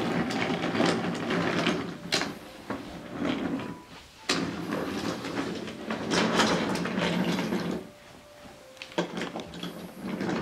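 Wooden toy train cars rolling along wooden track, pushed by hand: a rattling rumble with clicks, in three stretches with short pauses between.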